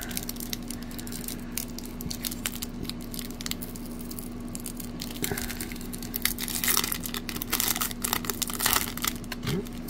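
Foil wrapper of a 1995-96 Fleer basketball card pack being torn open and peeled back by hand, crinkling and tearing. The crackling grows louder and denser over the last few seconds as the wrapper is pulled off the cards.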